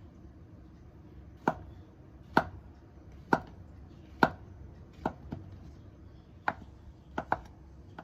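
Kitchen knife chopping food on a cutting board: about nine single, unhurried cuts at roughly one a second, with two quick double strokes in the second half.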